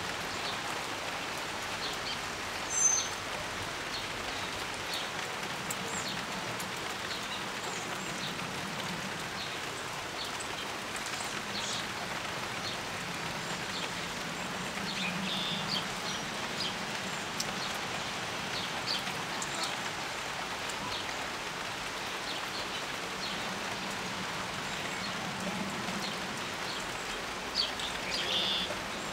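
Steady rain falling, with scattered short bird chirps over it; a sharp high chirp about three seconds in is the loudest sound, and a few more come close together near the end.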